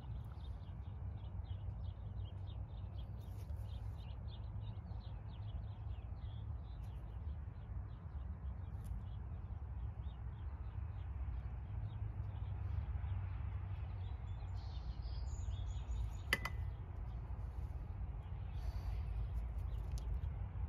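Outdoor ambience: a steady low rumble with birds chirping, a quick run of short chirps in the first half. A single sharp tap about sixteen seconds in.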